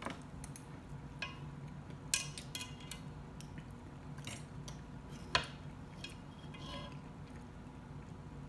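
Eating sounds: chewing with wet mouth clicks, and a metal fork clicking and scraping against the pan as more food is scooped up. A few sharp clicks stand out, the loudest about two and five seconds in.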